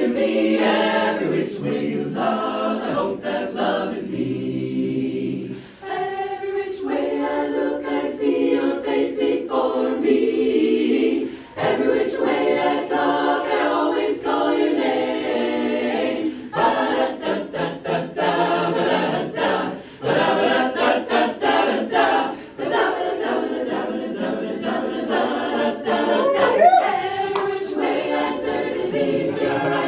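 Mixed barbershop chorus of men's and women's voices singing a cappella in close harmony, with short breaths between phrases.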